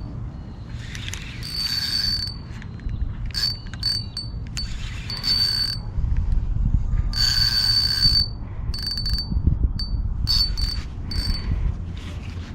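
Spinning fishing reel whirring in about a dozen short bursts with a thin high ringing tone, over a steady low rumble of wind and water.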